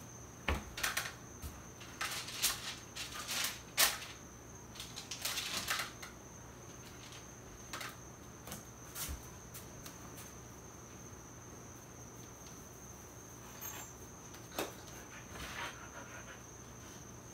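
Kitchen handling noises: a cluster of short taps and rustles in the first few seconds as biscuit dough is set down on a parchment-lined baking tray, a few more near the end, over a faint steady high-pitched whine.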